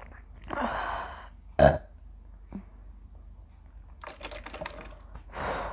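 A woman's single short, loud burp about one and a half seconds in. Breathy exhales come before it and near the end, with a run of small clicks in between.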